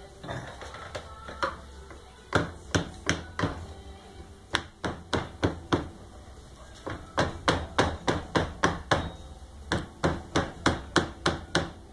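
Rubber mallet tapping a motorcycle fork oil seal down into the fork leg, with the old seal sitting on top as a driver, to seat it evenly. The strikes come in quick runs of several taps, about three a second, with short pauses between runs.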